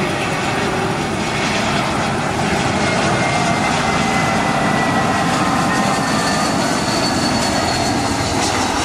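Twin-engine jet airliner landing, its jet engines a steady noise with a faint high whine that falls slowly in pitch.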